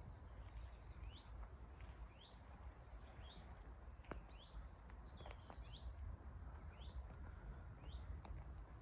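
A small bird calling over and over, a short high chirp about once a second, faint over a low rumble.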